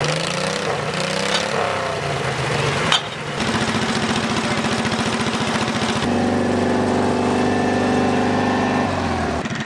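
Tractor engines running at a steady speed. The sound changes abruptly about three seconds in and again about six seconds in, as if from one tractor to another.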